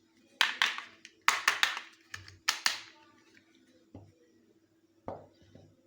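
Hands handling a miniature doll shoe set and its packaging: quick clusters of sharp taps and clicks in the first three seconds, then a couple of softer single knocks.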